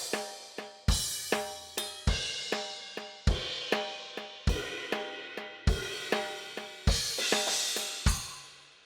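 Drum kit voice of a Yamaha PSR-SX900 arranger keyboard playing a steady beat: a deep kick about every second and a quarter with lighter pitched drum hits and cymbals between. A last hit a little after eight seconds in rings out and fades away.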